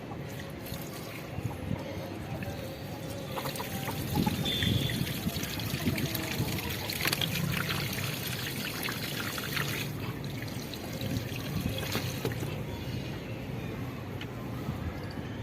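Water trickling and pouring from a leaking plumbing pipe, with scattered small clicks and knocks; it gets louder about four seconds in.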